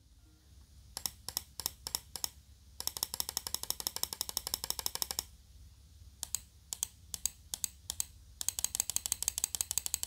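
Mouse-button microswitches in an Asus ROG Keris gaming mouse (its stock switches, rated for 70 million clicks) clicked by a finger. A string of separate clicks about five a second gives way to a fast, even run of clicks lasting about two seconds. The pattern then repeats, with the second fast run near the end.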